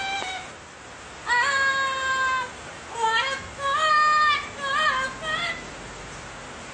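A parrot singing a wordless tune in a high, voice-like tone: one long held note, then a run of shorter notes that jump and break in pitch like yodeling.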